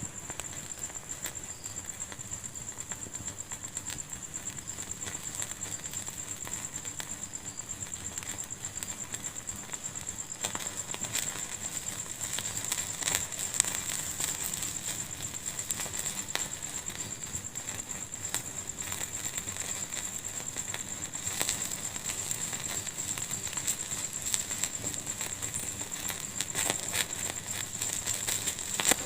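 Wood fire burning in a fireplace, crackling steadily with irregular small pops. The crackling gets busier about a third of the way in, with a few louder single pops.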